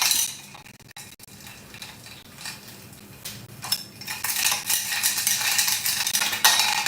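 Dishes and kitchen items clinking and clattering as they are handled, sparse for a few seconds and busier again in the second half.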